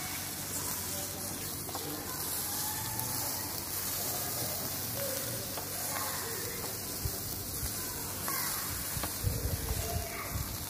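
Minced-meat kebabs on skewers sizzling steadily over a charcoal mangal.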